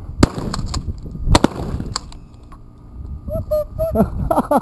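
Two shotgun shots about a second apart, each a sharp crack with a short ring after it.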